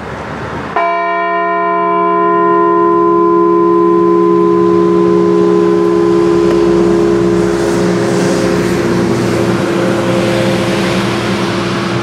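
Liberty Bell replica struck once about a second in, a single memorial toll for a deceased veteran. The deep bell rings with several overtones: the higher ones die away within a couple of seconds and the low hum rings on.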